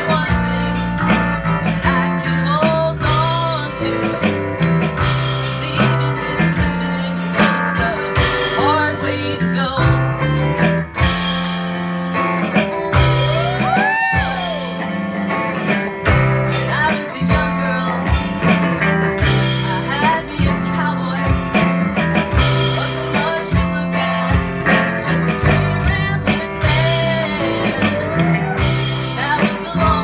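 Rock band playing a bluesy number: guitar with bent, sliding notes over a moving bass line and drums.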